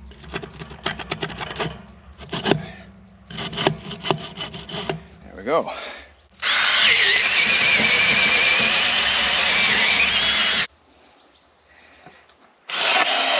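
Handling clicks and rustles, then a cordless drill boring a long bit through wood, running steadily under load with a whine for about four seconds before stopping suddenly; it starts drilling again near the end.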